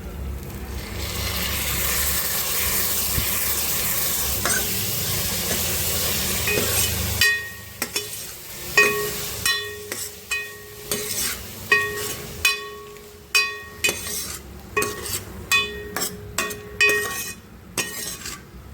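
Food sizzling in a hot pan for about seven seconds, stopping abruptly. Then a metal spoon clinks and scrapes repeatedly against a metal pot as the dish is stirred, each clink ringing briefly.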